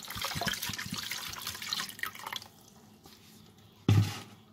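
Water poured from a plastic bottle splashing into a plastic basin of raw chicken pieces as a hand rubs and swishes them in the water. The pouring stops about two and a half seconds in, leaving faint sloshing, and a single thump comes near the end.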